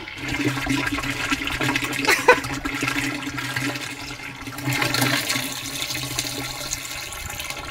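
Campervan grey water rushing out of a drain hose into a dump-station drain: a steady gush with a low hum, swelling briefly about five seconds in.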